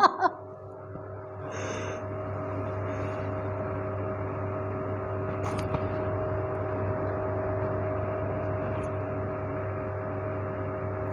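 Steady motor hum from a small electric desk fan running, with a low drone and a few steady tones. A faint click comes about five seconds in.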